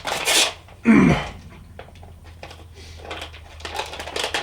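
A man coughing hard twice, about a second apart, the second cough ending in a falling grunt, to clear a piece of fruit bar lodged at the back of his throat. Softer scattered noises follow near the end.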